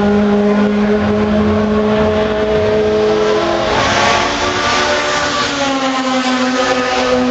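Race car engines running at speed on a circuit: one car's engine holds a steady note, then about halfway through another engine comes in, rising in pitch before levelling off.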